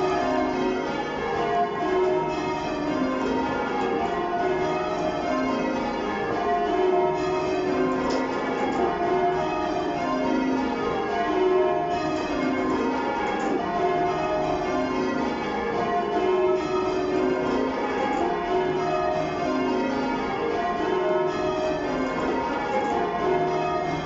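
The eight heaviest bells of a ring cast in 2017, tenor 21 cwt in E-flat, rung full-circle in call changes: each bell strikes in turn, so the tones step down in pitch row after row in a steady, repeating rhythm. Heard from the ringing chamber below the bells.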